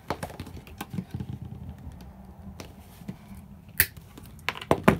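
Wire cutters snipping small electrical wires, with light clicks of the wires and tools being handled; one sharp snip a little under four seconds in and a quick run of clicks near the end.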